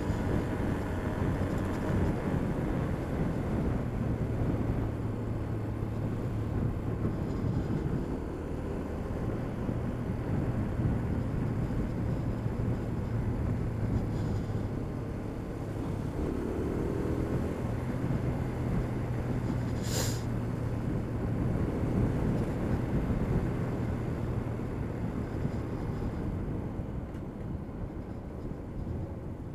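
Motorcycle engine running steadily at low road speed, its pitch shifting a few times, under a continuous hiss of tyres and wind. A single short sharp click comes about 20 seconds in.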